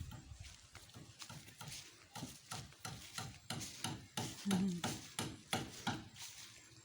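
A run of irregular short knocks, a few a second, with a brief low sound about halfway through.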